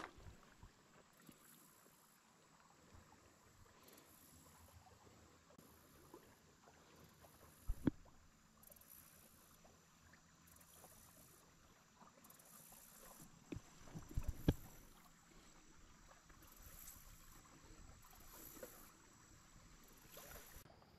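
Near silence: faint outdoor background noise, broken by a brief knock about eight seconds in and a few more knocks around fourteen seconds in.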